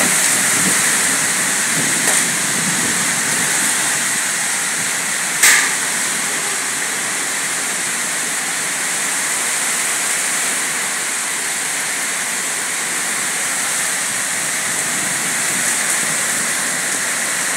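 Heavy rain pouring down in strong wind, a steady loud hiss. A single sharp knock comes about five and a half seconds in.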